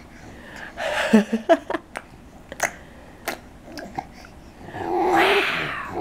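Baby vocalizing: a short coo with a bending pitch about a second in, then a longer, louder, breathy squeal near the end.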